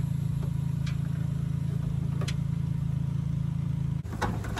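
A steady low mechanical hum, like an engine running, with a few faint clicks. The hum drops abruptly about four seconds in.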